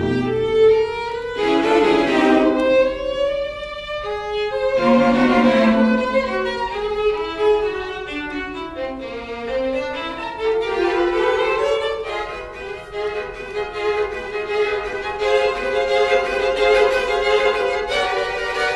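String quartet (two violins, viola and cello) playing, with loud accented chords in the first few seconds giving way to longer held notes and moving melodic lines.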